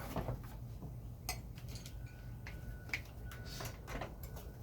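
Scattered light clicks and taps of hand tools and small metal parts, a handful of separate sharp ticks over a few seconds, as a small portable generator is taken apart by hand.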